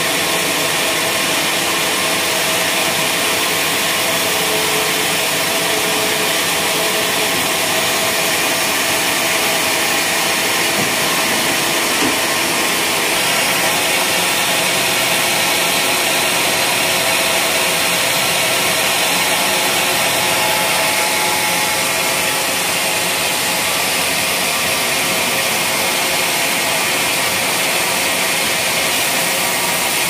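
Vertical band sawmill running steadily with a continuous hissing whine, its band blade cutting wadang (Pterospermum javanicum) timber by the end.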